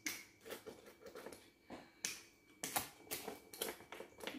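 Pizza cutter wheel rolling through the crust and clicking and scraping against the pizza pan as the pizza is sliced, in a series of irregular sharp clicks.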